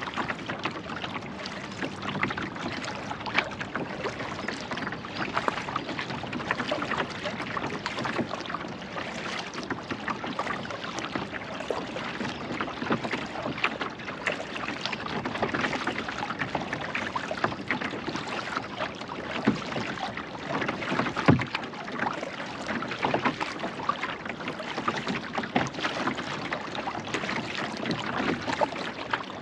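Kayak paddling: the paddle dipping and splashing, with water trickling and lapping around the hull in a continuous crackling wash. A sharper knock comes about two-thirds of the way in.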